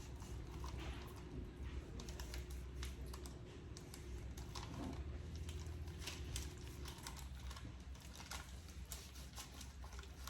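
Knife trimming fat from a raw pork butt on a cutting board: irregular light clicks and taps of the blade against the board, over a low steady hum.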